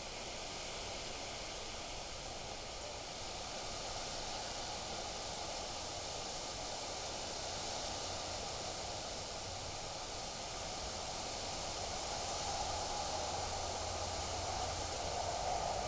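Wind blowing outdoors: a steady rushing noise with some rustle, building a little louder toward the end.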